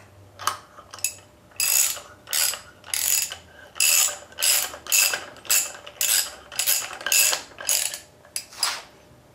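Ratchet wrench clicking in short repeated strokes, about two a second, as the flywheel nut is run down onto the crankshaft; the clicking stops about a second before the end.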